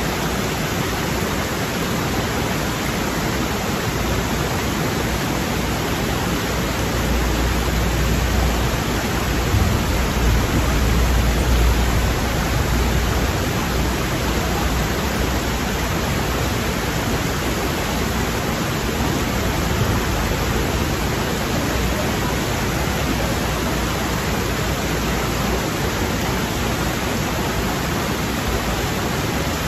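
Shallow rocky stream rushing over boulders and small cascades: a steady, even rush of water. A low rumble swells in under it for several seconds partway through.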